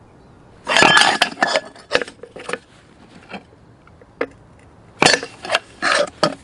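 Metal base of a camp kettle rattling, knocking and scraping on a concrete paving slab as the slab is tilted, in two clusters of clatter, one near the start and another about five seconds in. Without its ring stand the narrow base rocks on the slab and is prone to toppling.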